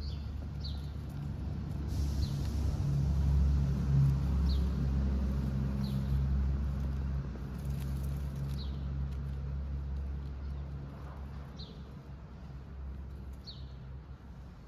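Low engine rumble of traffic, swelling a few seconds in and easing off toward the end, under a small bird's short high chirps repeated every second or two.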